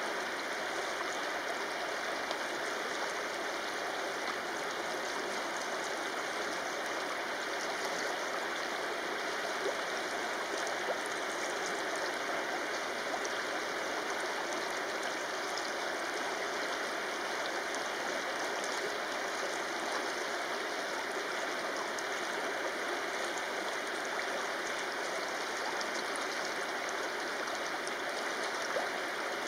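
Shallow river flowing over a stony bed: a steady, even rushing of water.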